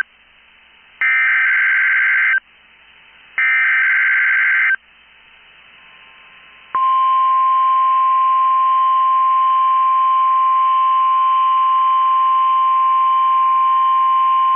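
NOAA Weather Radio Emergency Alert System signal. It opens with the end of one SAME digital header burst, then two more harsh buzzing data bursts about a second and a half long with a second's gap between them. About seven seconds in, the steady 1050 Hz weather-radio warning alert tone starts and holds.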